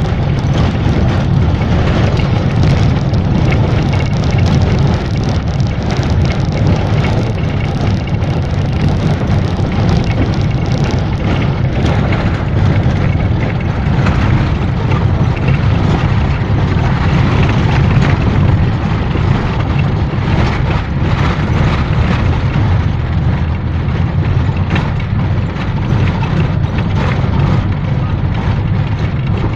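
Steady low rumble of a moving minibus's engine and road noise, heard from inside the cabin.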